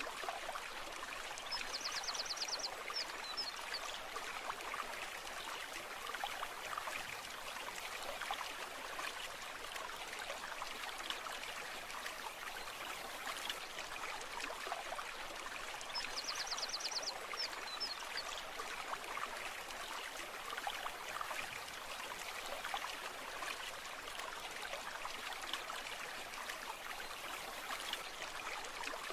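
A brook running and trickling steadily over stones. A short, high, rapid trill sounds twice, about a second and a half in and again about sixteen seconds in.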